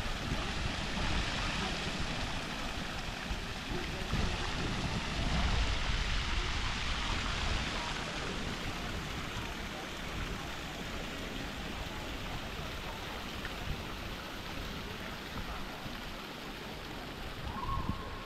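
Water splashing from a fountain's rows of jets, a steady hiss that grows fainter after about eight seconds.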